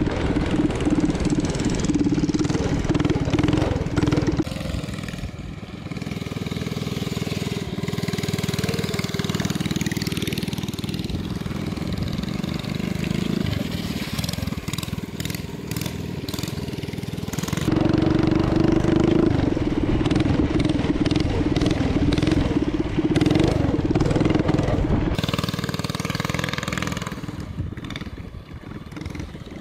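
Small engine of a motorized drift trike running and revving, rising and falling in pitch as the trike drifts.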